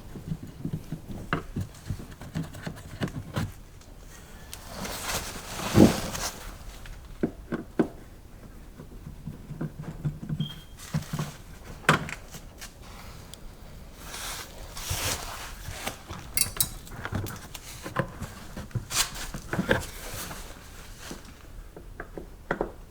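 Scattered knocks, clicks and scrapes of hand work on car body trim: the plastic side skirt and its plastic retainers being pried and handled. The loudest knock comes about six seconds in.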